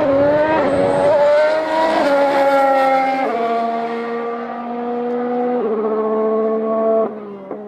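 Ferrari SF15-T Formula One car's 1.6-litre turbocharged V6 engine, changing down through the gears as the car slows, the pitch dropping in a step with each downshift, four times in all. The sound falls off sharply near the end.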